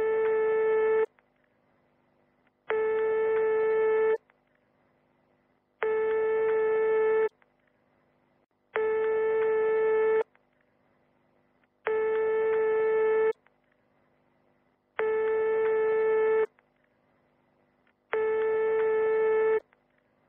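Telephone ringback tone: a steady single-pitch tone about a second and a half long, repeating about every three seconds while the call waits to be answered.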